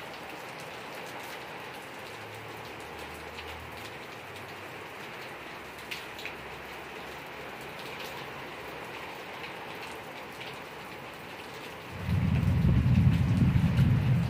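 Heavy rain falling steadily on garden plants. About twelve seconds in, a loud low rumble of thunder rises over it and keeps rolling.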